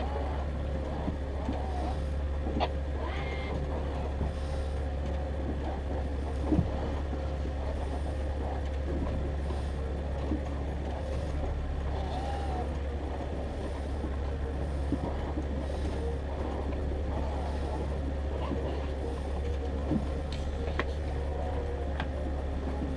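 Boat motor running steadily, a low even drone, with a few small knocks now and then.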